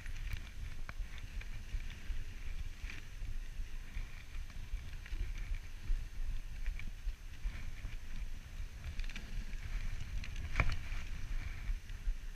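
Dog sled running over snow: a steady low rumble from the runners and from wind on the microphone, with scattered small creaks and scrapes from the sled and one sharper knock near the end.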